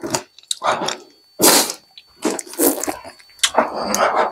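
A man breathing hard through his open mouth in a string of short, sharp hissing breaths, about six in a row, against the burn of the very hot chili pepper chip he has eaten.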